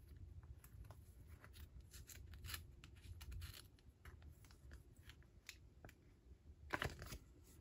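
Near silence with faint, scattered clicks and rustles of cards and plastic packaging being handled, with a slightly louder rustle about seven seconds in.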